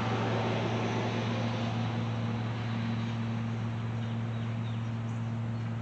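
Passing road traffic whose rushing noise fades away over the first couple of seconds, over a steady low hum.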